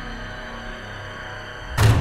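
Dark, ominous soundtrack music holding a low sustained drone, broken near the end by a sudden loud hit with a deep boom.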